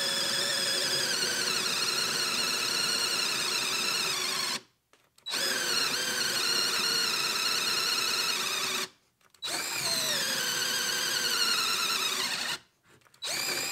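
TackLife 20 V cordless drill boring a 5/8-inch spade bit into a wooden board: a steady motor whine whose pitch sags after each restart. It stops three times for about half a second, then runs on.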